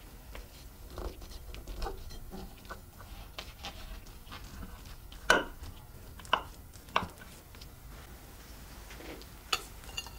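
A knife cutting through a baked potato and cheese cake with a crisp crust: soft crunching and crackling, with four sharp clicks of the blade against the plate in the second half, the first the loudest.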